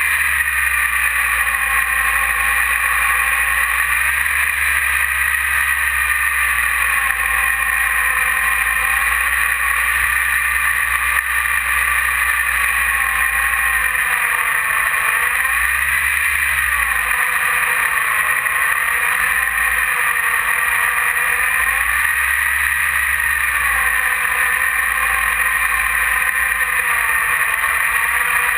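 Electric E-flite 480 1020 kV brushless outrunner motor and propeller of an RC plane whining steadily, heard on board. Its pitch dips and rises several times, over a low wind rumble on the microphone.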